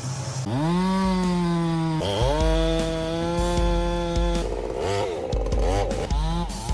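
Chainsaw engine revved up to full throttle about half a second in, held steady, briefly dropped and revved again around two seconds. In the last couple of seconds its pitch wobbles up and down.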